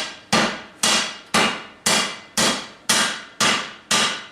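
Hand hammer striking hot leaf-spring steel, bending it to a 90-degree angle: steady blows about two a second, eight in all, each ringing out briefly before the next.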